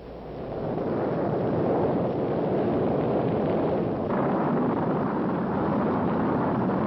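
Saturn V rocket engines at ignition and lift-off: a loud, steady rushing rumble that builds over the first second and grows brighter about four seconds in.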